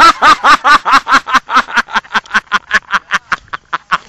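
A man laughing hard and close to the microphone: a long, rapid string of loud 'ha-ha' bursts, about seven a second, which slows and grows fainter toward the end.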